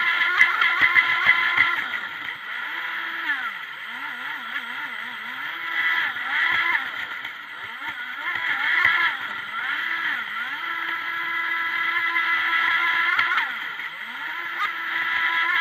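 Onboard sound of a Pro Boat Formula Fastech RC boat's stock electric motor, run on a 5S LiPo, whining as it drives the boat. The pitch sits steady, drops and climbs back several times as the throttle is eased off and reapplied, and wavers quickly up and down about four seconds in.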